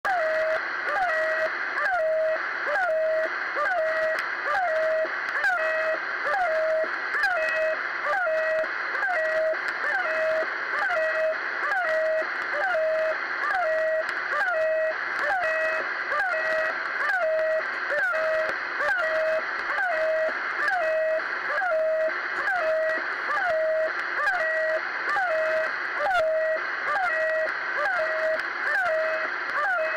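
Shortwave channel marker 'The Goose' received in USB on 3243 kHz: a short honking tone that dips briefly and then holds, repeating about once a second over steady radio static.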